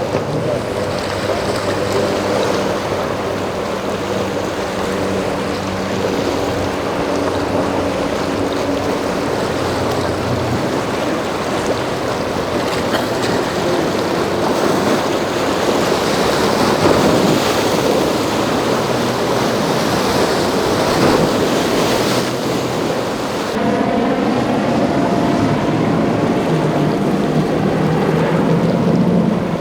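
Boat engines running through the inlet over a steady wash of breaking surf and wind noise on the microphone. About three-quarters of the way through, the sound changes abruptly, and a new steady engine tone comes in.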